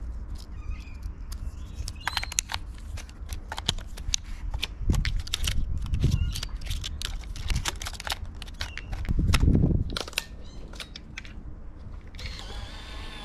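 Small plastic and metal clicks and rattles of a 35mm film camera being handled and loaded with a roll of film. A couple of heavier handling bumps come through about halfway and again later, and a steady whirring sound comes in near the end.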